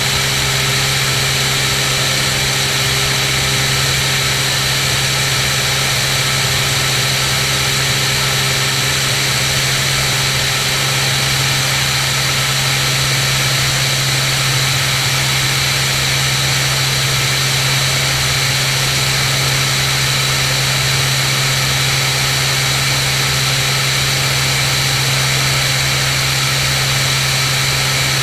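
Cirrus SR22's six-cylinder piston engine and propeller droning steadily in cruise flight, with a low hum and a constant rush of air over it.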